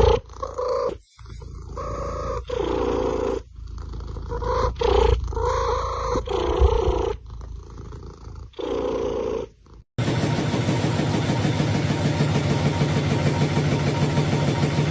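A cat yowling and growling in a series of long, drawn-out calls that bend in pitch, with short breaks between them. About ten seconds in, this cuts off suddenly and a steady, even rumble takes over.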